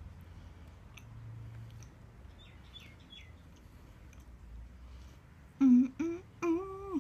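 A woman chewing, then humming three closed-mouth 'mmm' sounds of enjoyment near the end, the first the loudest. Three faint, short high chirps, like a bird, come a little before the middle.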